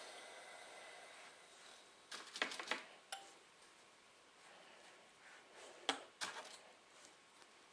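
Faint handling sounds as black fabric is folded and pinned on an ironing board: a few small clicks and taps in a cluster about two seconds in, one just after three seconds, and two more near six seconds.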